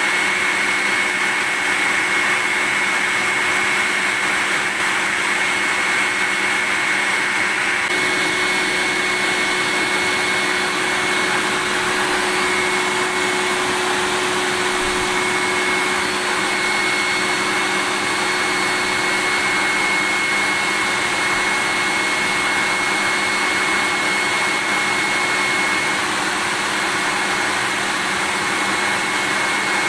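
Vacuum cleaner running steadily: a continuous rushing hiss of air with a high motor whine, played as white noise to lull babies to sleep.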